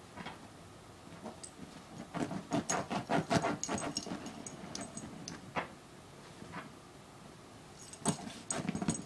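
Dog rooting behind fabric couch cushions after a lost bone: scratching and rustling against the upholstery, with the metal tags on its collar jingling. The sounds come in a busy spell about two to five seconds in and again near the end.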